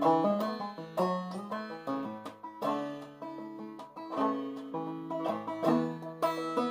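Long-neck banjo played clawhammer style in double A tuning: a continuous run of plucked, quickly decaying notes, several a second.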